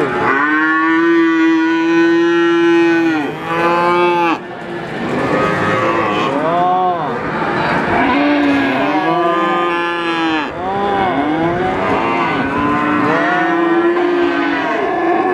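Calves mooing. There is one long moo of about three seconds and a short one right after it, then a run of overlapping moos at different pitches from several calves.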